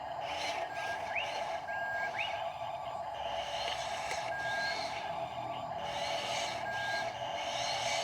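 Birds calling with repeated short rising whistled chirps and brief flat whistles over a steady hum.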